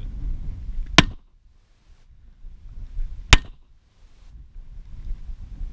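Two pistol shots, about two and a half seconds apart.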